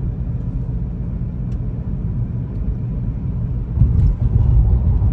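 Steady low rumble of a moving car's engine and road noise heard from inside the cabin, getting louder about four seconds in.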